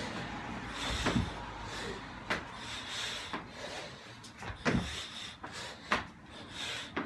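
Burpees: hands and feet thudding onto rubber gym flooring as the body drops and jumps back up, about one thud a second.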